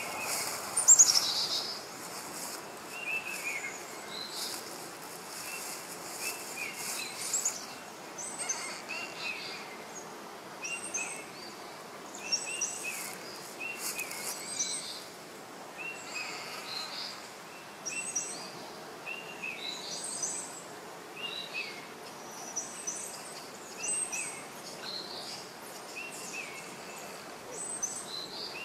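Birds calling in the tree canopy: short high chirps repeated every second or so over a steady background hiss, with one louder call sweeping down in pitch about a second in.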